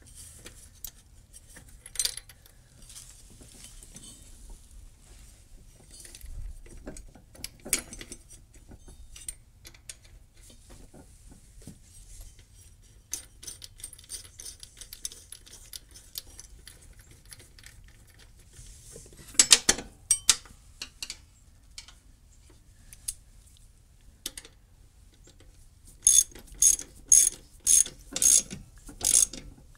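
Socket ratchet wrench clicking as a pulley bolt on the mower deck is tightened back down: a short cluster of clicks about two-thirds through, then a steady run of about seven ratchet strokes, roughly two a second, near the end. Before that, only faint scattered clinks of hands and metal parts.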